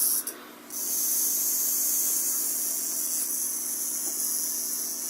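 Black-tailed rattlesnake rattling its tail: a steady, high hissing buzz that breaks off for about half a second near the start, then carries on. It is the defensive rattle of an agitated snake.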